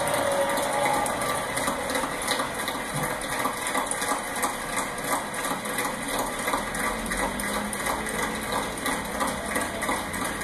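A crowd applauding that settles into clapping in unison, a steady rhythm of about two to three claps a second, heard through a television speaker.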